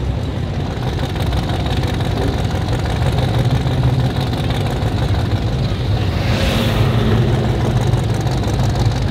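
Classic cars' engines rumbling as they drive slowly past one after another, with a deep steady exhaust note. About two-thirds of the way through there is a brief louder rush as one car passes close or revs.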